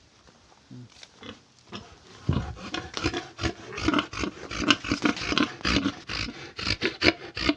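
Sows grunting, busy and irregular, starting about two seconds in.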